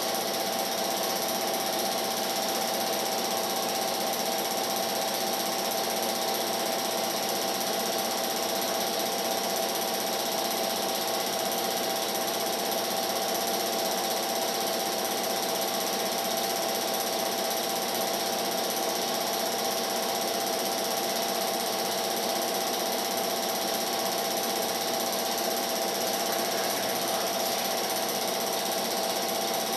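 Film projector running with a steady mechanical whir.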